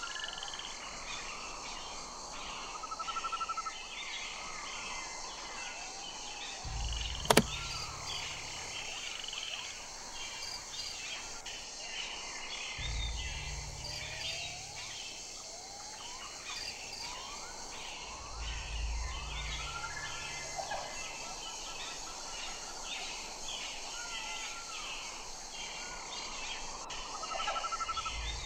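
Many birds chirping and calling, with whistled rising and falling notes, over a steady high hiss. A single sharp click comes about seven seconds in, and there are a few short low rumbles.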